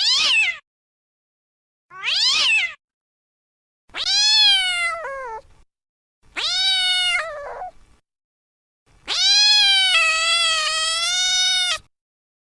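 Domestic cat meowing five times with pauses between: two short rising meows, two longer falling ones, then a long drawn-out wavering meow near the end.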